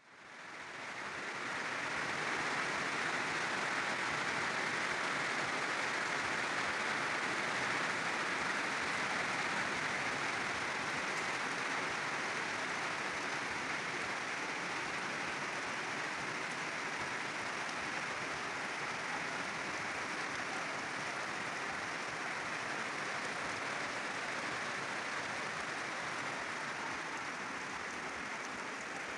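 Steady rain, an even hiss that fades in over the first second or two and then holds without a break.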